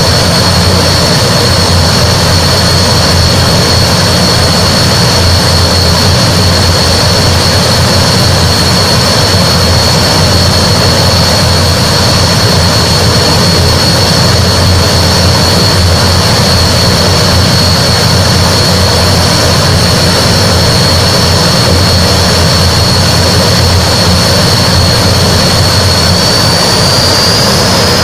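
Antonov An-12's four Ivchenko AI-20 turboprop engines running loud and steady: a high whine over a low drone. The whine rises slightly near the end.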